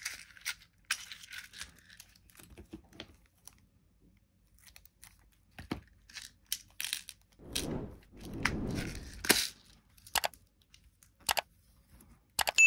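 Small plastic screw bags crinkling and the snap-shut lids of a clear plastic parts organizer clicking, a run of sharp snaps with rustling between them. Right at the end comes a bright ding.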